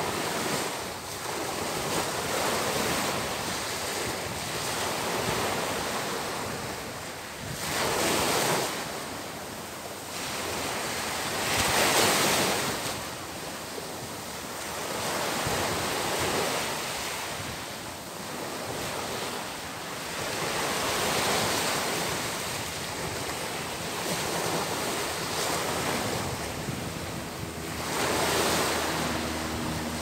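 Small sea waves breaking and washing up a sandy beach: a steady surf hiss that swells and eases with each wave, with three louder breakers along the way.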